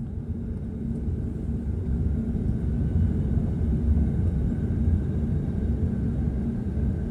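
Jet airliner cabin noise while taxiing: a steady low rumble of engines and wheels rolling over the taxiway, growing louder over the first few seconds and then holding.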